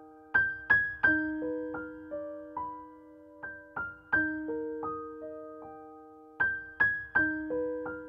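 Background music: a slow keyboard melody of single struck notes left to ring and fade, with a short phrase repeating about every three seconds.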